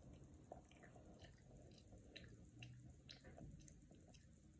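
Near silence, with faint scattered soft ticks and small wet sounds from a young child eating noodles off a fork.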